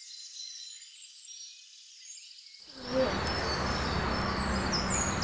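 Faint insect and bird chirping, then about two and a half seconds in a steady sizzle starts suddenly: gram-flour-battered cauliflower frying in hot oil in a kadai.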